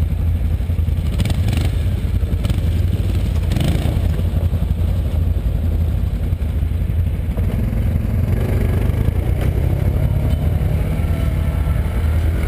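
Can-Am Outlander ATV's V-twin engine idling steadily, with a few brief clatters in the first few seconds. Other ATV engines can be heard faintly revving in the background in the second half.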